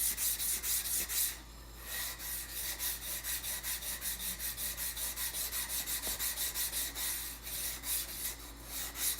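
High-carbon steel butcher's knife blade stroked rapidly back and forth on a very coarse 200-grit water stone, an even rasping scrape of about five strokes a second with a short break about a second and a half in. The coarse stone is cutting fast through the old patina and pitting.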